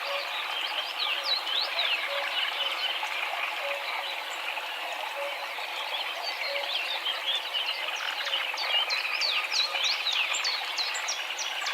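A flock of greylag geese calling, with many overlapping calls forming a continuous chatter. From about halfway, many quick high chirps join in.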